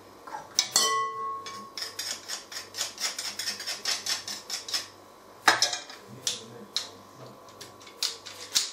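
Metal garlic press working garlic cloves and knocking against a glass bowl: a run of quick clicks and taps, with a ringing knock about a second in and another sharp knock about halfway through.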